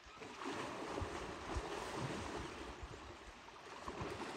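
Water sloshing and splashing as African elephants wallow and roll in a dam, with low wind rumble on the microphone.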